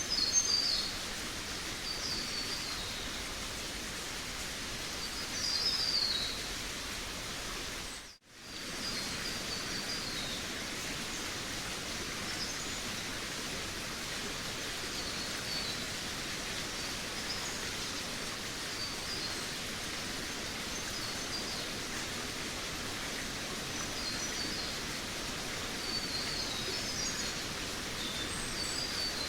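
Forest birds chirping in short high phrases over a steady background hiss. The whole sound drops out for a moment about eight seconds in.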